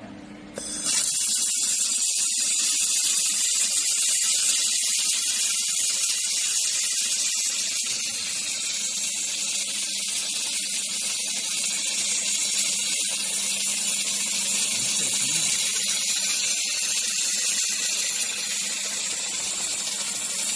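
3000 W handheld fiber laser welder welding 6 mm aluminium: a loud, steady hiss that starts about a second in and cuts off at the end as the beam stops.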